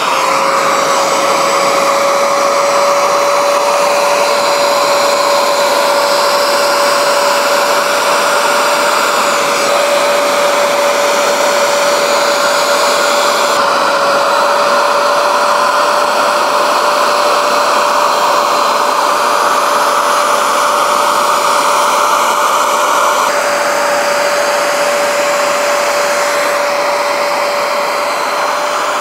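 Bissell Spot Clean Pro carpet extractor running steadily: a constant motor whine with a rushing suction hiss as the hand tool sprays and draws dirty water out of a carpet floor mat.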